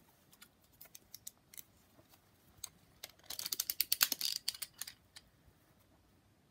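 Plastic toy gun being handled, its mechanism giving scattered small clicks. About three seconds in, there is a rapid run of clicking lasting about a second and a half as fingers work the gun's green ring part.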